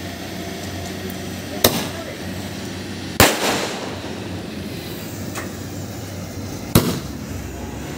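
Aerial firework shells bursting in the sky: three sharp bangs spread across a few seconds, the second the loudest, with a fainter pop between the last two.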